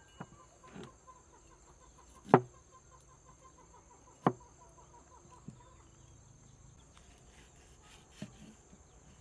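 A heavy cleaver knocking on a wooden chopping board as bitter melon is cut: a few separate sharp knocks, the two loudest about two and four seconds in.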